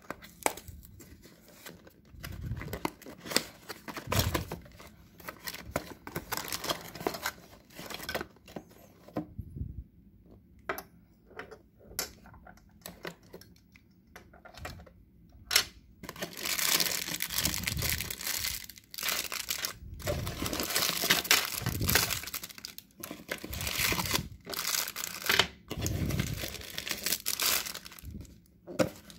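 Unboxing handling noise: a cardboard box and its contents being handled, with scattered small clicks and rustles at first. From about halfway in comes louder, near-continuous crinkling of the plastic bags holding an action camera's accessories and of paper packaging.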